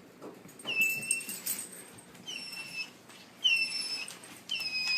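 Dog whining: four short, high-pitched whines, each about half a second long, roughly a second apart, the sound of a dog being scolded.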